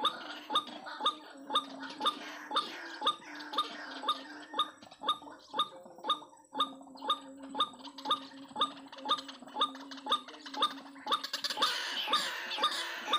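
Rapid, evenly spaced clicking, about four clicks a second, over a steady low hum; a denser hiss builds up near the end.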